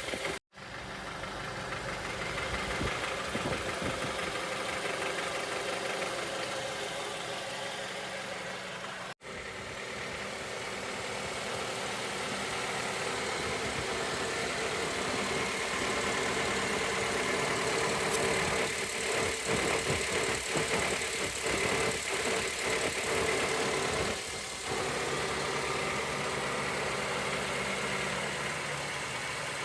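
Honda Element's 2.4-litre four-cylinder engine running at idle with an engine noise suspected to be rod knock. The sound cuts out briefly twice, near the start and about nine seconds in, and a run of irregular sharp knocks comes through between about 19 and 24 seconds.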